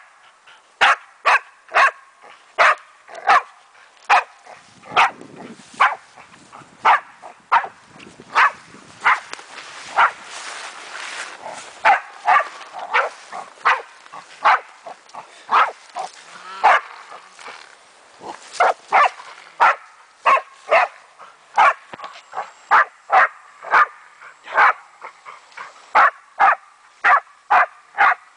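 German Wachtelhund barking steadily at a cornered raccoon dog: a long run of short, sharp barks, about one and a half a second, with a short lull near the middle.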